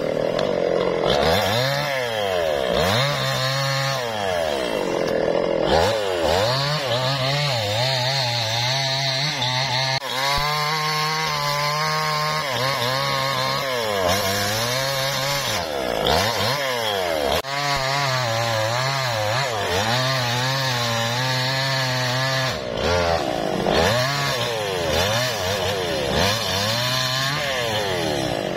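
Two-stroke chainsaw cutting through a felled teak log. The engine speed dips and climbs again and again, with longer stretches held at steady high speed while the chain is in the wood.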